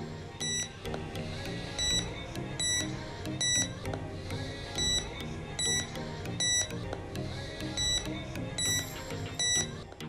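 Background music with a short, high electronic alarm beep repeating about once a second in loose groups, stopping just before the end.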